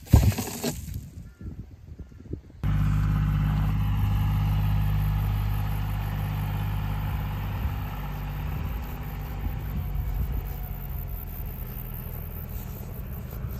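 A few knocks and rustles, then from about two and a half seconds in, a farm vehicle's engine running steadily and slowly getting quieter.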